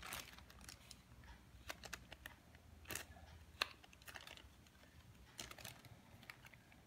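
Faint, scattered light clicks and plastic crinkles as a small battery-powered handheld bag heat sealer is pressed onto a thin plastic bag and slid along its edge.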